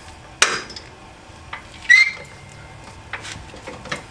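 Harbor Freight 1.5-ton aluminum floor jack being pumped by its long handle as it lifts the Jeep's front end. Each stroke gives a sharp metallic clank: two loud ones about a second and a half apart, the second ringing briefly, then lighter clicks near the end.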